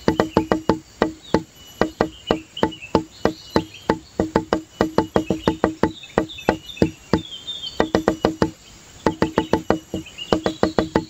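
Rapid wood-block-like knocking, about five sharp pitched knocks a second with short breaks, with faint high chirping over it.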